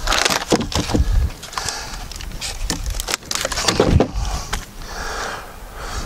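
Irregular knocks and scrapes of rough-sawn wooden cants being shifted and handled, with the splintered end of a split cant being grabbed and worked by hand.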